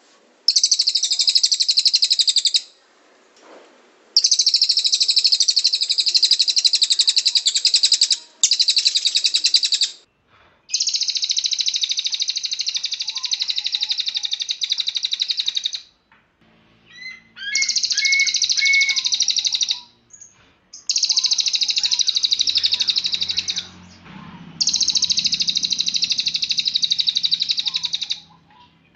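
Cililin bird singing its full rapid song: a string of long, very fast, high-pitched trills, each a few seconds long, broken by brief pauses about seven times.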